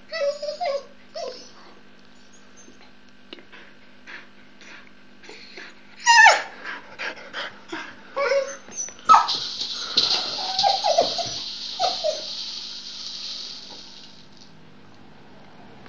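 A dog whining and yipping in short rising and falling cries, worked up over her rattle ball; the loudest cries come about six seconds in and again around nine to twelve seconds in. A steady high hiss runs under the later cries and stops shortly before the end.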